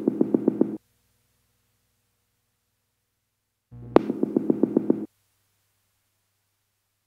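A short electronic synth phrase repeating: a sharp hit followed by a quick run of pulsed notes, about a second and a half long. One ends just after the start and another plays about four seconds in, with dead silence between.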